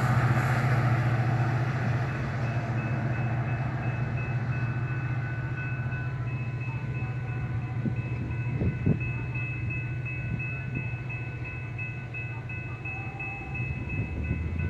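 Metra diesel commuter train running past and away: a steady low engine drone that slowly fades, with a grade-crossing bell ringing in rapid, even strokes and a few sharp clicks from the wheels on the rails about two-thirds of the way through.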